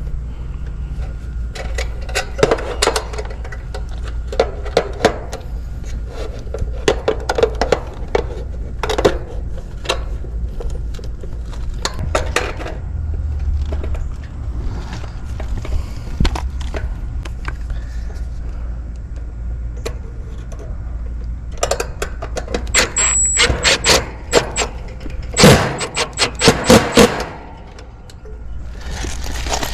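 Bursts of small metallic clicks and rattles as wire spade connectors are handled and pushed onto the terminals of a new run capacitor in a heat pump's outdoor unit. A steady low hum runs underneath, and the densest clicking comes near the end.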